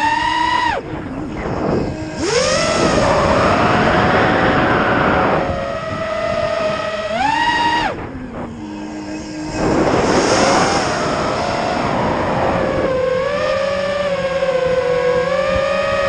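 Eachine Wizard X220 racing quadcopter's brushless motors and propellers whining, the pitch rising and falling with the throttle. The throttle is cut twice, about a second in and about eight seconds in, each time followed by a punch-out with a rush of air noise.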